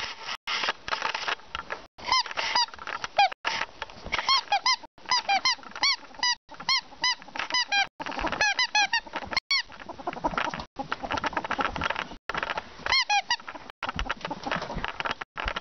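Ferret dooking: runs of short, quick clucking chirps, several a second, over scuffling and rustling noise, with brief breaks between runs.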